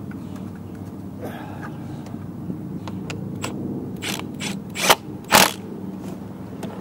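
Lawn mower's rear drive wheel being turned by hand, its ratchet drive mechanism clicking rapidly and continuously, with a couple of sharp knocks a little past the middle.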